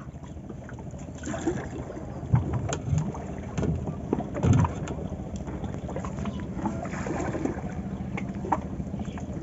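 Small wooden boat on open water: water lapping at the hull, with scattered light knocks and a few soft thumps from handling the line on the boat.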